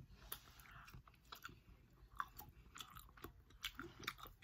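Faint chewing of seafood, with soft irregular clicks and smacks of the mouth.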